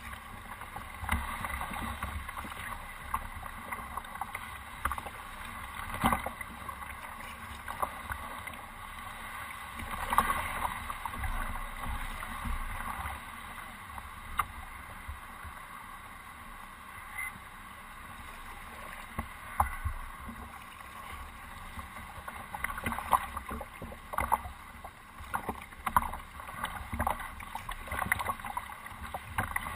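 A canoe being paddled: water swishing and splashing along the hull, with several sharp knocks scattered through.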